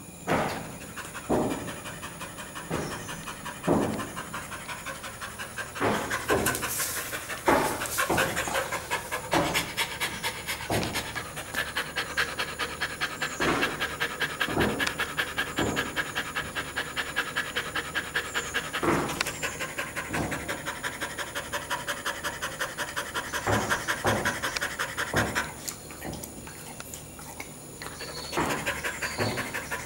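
Dog panting fast and rhythmically, tired and overheated after running in summer heat. A few louder clicks come through at irregular moments, and the panting stops for a couple of seconds near the end before starting again.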